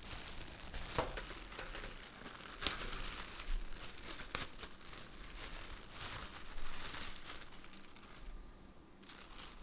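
Packaging crinkling and rustling as it is handled and searched through, with a few sharp clicks, dying down near the end.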